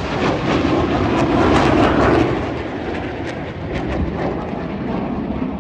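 Aircraft flying past, with loud engine noise that is strongest for about the first two seconds, then eases off.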